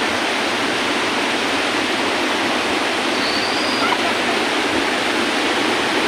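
Waterfall cascading over rocks close by: a steady, even rush of water.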